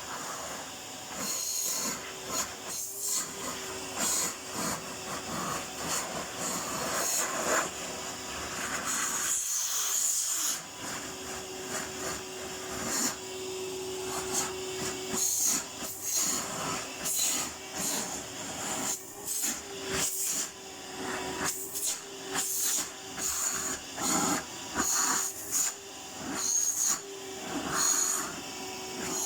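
Vacuum cleaner running, its motor a steady whine under repeated surges of hissing suction as it is worked over the floor, with a brief dip about ten seconds in.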